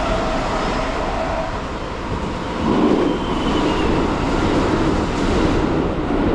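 Keikyu commuter train running on rails: a steady rumble of wheels and running gear that grows a little louder about two and a half seconds in, with a faint high whine.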